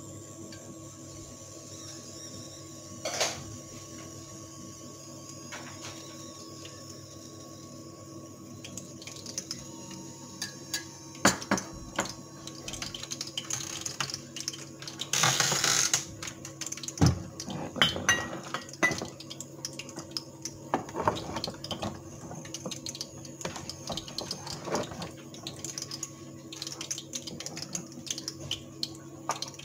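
Cooking oil heating in a small frying pan on an induction cooktop, brought up to frying temperature: scattered pops and crackles that grow thicker after about nine seconds, with one louder spitting burst about halfway. Underneath runs the cooktop's steady hum.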